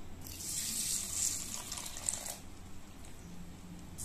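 Water poured from a steel bowl into a glass bowl of dry split black gram to soak it, a splashing trickle that runs for about two seconds and stops. A second pour, over rice, starts at the very end.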